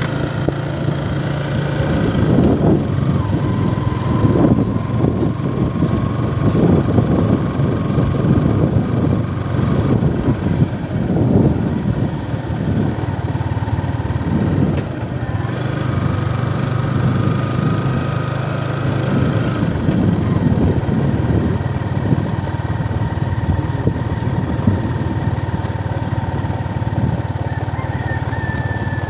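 Small motorcycle engine running steadily while riding slowly, its whine shifting a little in pitch. Wind rumbles on the microphone, heavier in the first half.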